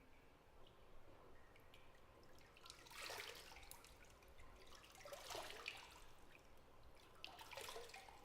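Faint bathwater in a tub: three short spells of small splashes and drips, about three, five and seven and a half seconds in, over a quiet background.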